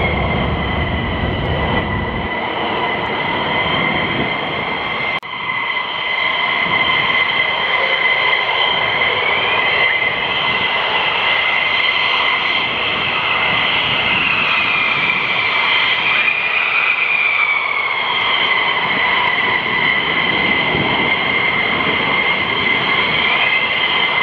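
F-15 jet engines whining steadily, a loud high-pitched whine made of a couple of tones that waver slowly up and down. There is a short break about five seconds in.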